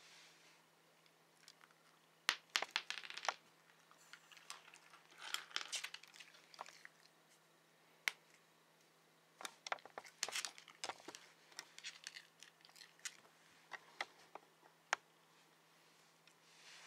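Shiba Inu crunching a hard dog treat, in short bouts of sharp crunches a couple of seconds in and again around ten seconds in, with soft crinkling between them.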